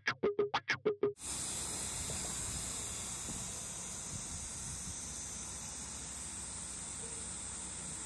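A few quick rhythmic musical pulses end abruptly about a second in. They give way to a steady, high-pitched hiss of summer insects droning outdoors.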